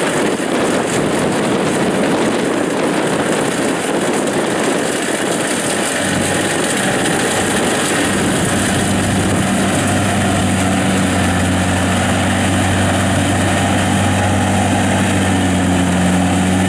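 Kubota DC70 Plus rice combine harvester running steadily under load while cutting lodged rice: diesel engine and threshing machinery. From about halfway a steady low engine hum grows stronger as the machine comes close.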